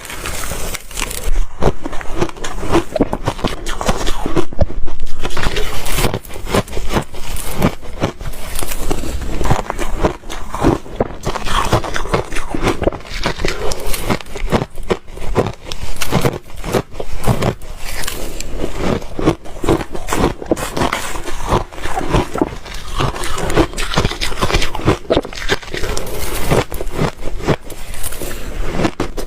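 Ice being bitten and chewed: loud, dense crunching and crackling, one crunch after another in quick succession.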